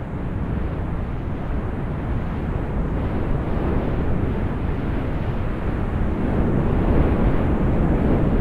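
A steady rushing, rumbling noise with no tune or voice. It fades in at the start and slowly grows louder.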